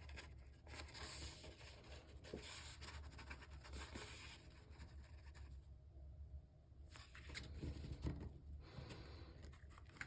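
Faint rubbing and rustling of cardstock as paper pieces are handled, folded and pressed together, with a few small ticks and a quieter pause in the middle.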